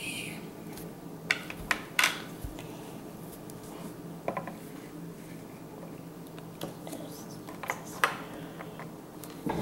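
Plastic toy figures and play-set pieces being moved about on a tabletop, giving scattered light clicks and taps.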